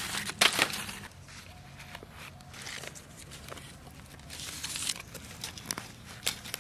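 Large fresh green leaves rustling and crinkling as they are handled and folded by hand. A few sharper crackles come in the first second, then softer, scattered rustles and small clicks.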